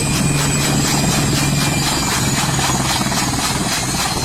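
Helicopter running steadily: a low engine and rotor hum with a faint high turbine whine.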